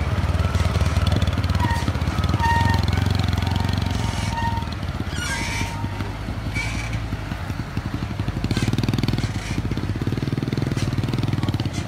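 Engine of a log-loaded Forland dump truck running steadily under load as it pulls along a muddy dirt track, mixed with a motorcycle engine close by. The engine note eases a little past the middle and picks up again.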